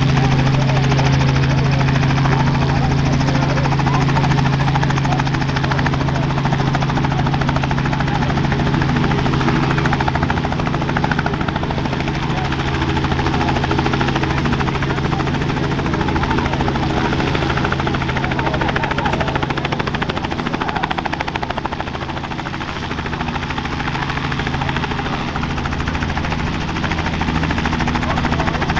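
Robinson R44 Raven II helicopter with its Lycoming IO-540 six-cylinder piston engine running at flight power as it lifts off into a low hover, the main and tail rotors turning. Loud and steady throughout; a low hum in it fades after about ten seconds.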